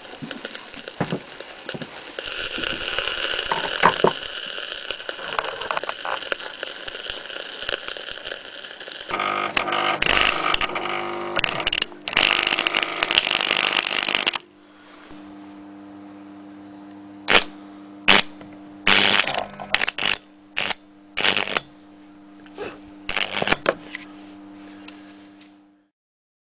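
Small electric motors being overvolted until they burn out. First a motor runs with a hiss and a steady high whine as it smokes, then a louder, harsher stretch as a can-type motor throws sparks and flame. After that comes a low steady hum broken by about a dozen sharp cracks, and the sound stops just before the end.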